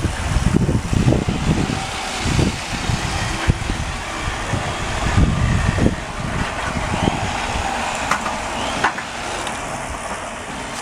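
A motor running under a steady rushing noise, with irregular heavy low buffeting thumps in the first six seconds that ease off after that.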